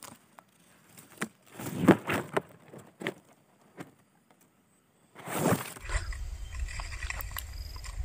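Leaves and twigs brushing and tapping against a phone pushed into the foliage at a bird's nest: scattered rustles and clicks, the loudest about two seconds in, with quiet between. Just before six seconds a steady low wind rumble on the microphone takes over.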